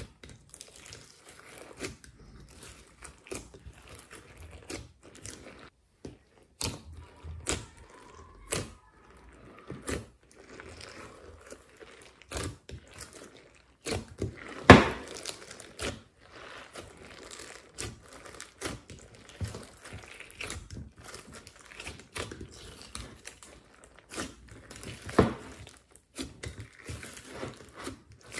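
Hands squishing, stretching and folding a glossy slime mixed with clay and glitter, giving irregular sticky clicks and pops. The loudest pop comes about halfway through, and another strong one near the end.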